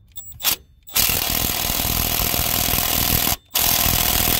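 Cordless impact wrench hammering at a tight 13 mm pulley bolt on a 7.3 diesel engine, in two long bursts with a short break between.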